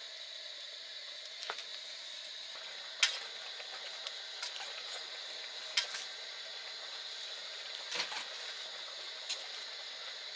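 Food sizzling steadily as it fries in a pan, with a handful of sharp clicks and taps scattered through, the loudest about three seconds in.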